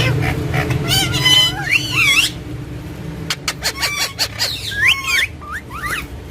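Green parrot calling: a quick run of gliding, wavering squawks and whistles, then a string of sharp clicking sounds, then a couple more rising and falling calls.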